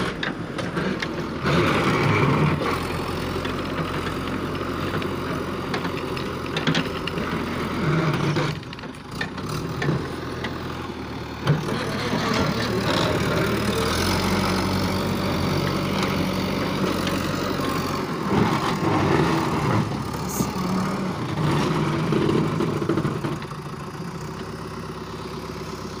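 JCB 3DX backhoe loader's diesel engine running under load, its pitch and loudness rising and falling as it works, with a sharp clank about eleven seconds in.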